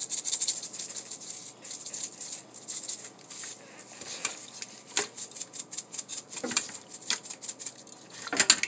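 Lemon pepper shaken from a spice shaker onto raw chicken breasts, the seasoning rattling in quick shakes for the first few seconds, then a few separate rustles and clicks as a plastic-gloved hand rubs it into the chicken.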